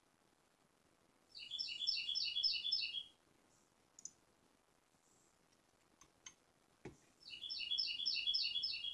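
Two short, fast chirping trills about six seconds apart, each a quick run of repeated high notes, with a few sharp clicks, like mouse clicks, in between.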